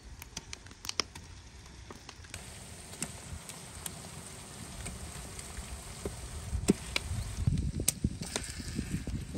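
Wood fire crackling and popping under a steel cooking pot. From about two seconds in there is a steady sizzle as raw meat pieces fry in the hot tomato paste and onions, with a few dull thuds near the end as more pieces drop into the pot.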